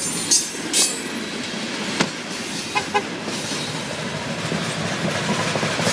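A freight train of loaded coal hopper cars rolling past, a steady noise of wheels on the rails broken by a few sharp clanks.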